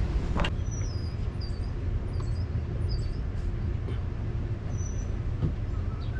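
Steady low rumble of vehicle engine noise, with a sharp click just under half a second in and a few short, high chirps.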